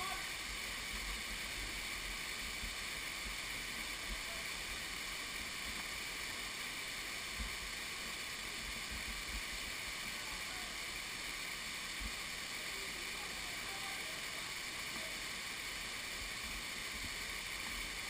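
Steady, even rush of a waterfall's cascading streams, with brief low rumbles underneath.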